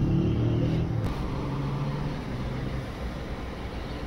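A steady low engine rumble with a faint hum.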